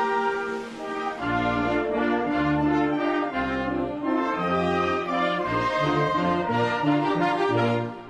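Mexican brass band (banda filarmónica) playing a melody on trumpets and trombones in long held notes, with low bass notes coming in about a second in.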